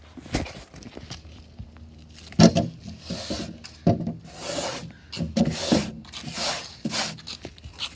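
A hand brushing gritty dirt off a chair seat: a series of rough rubbing, scraping swipes, starting a couple of seconds in and repeating about once or twice a second.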